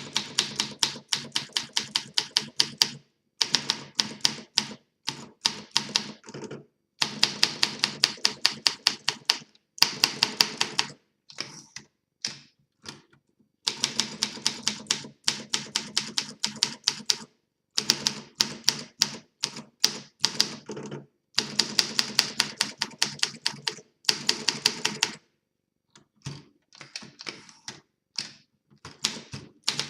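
1953 Olympia SM3 DeLuxe manual portable typewriter being typed on, freshly restored: quick runs of sharp key and typebar strikes, several a second, broken by short pauses every few seconds.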